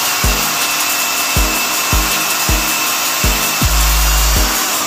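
Electric drill running with a steady whine as its bit bores through a small white aluminium piece. Background music with a steady bass beat plays over it.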